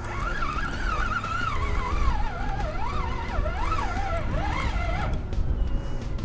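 A whistling tone that wanders up and down in pitch for about five seconds, then stops, over a steady low rumble.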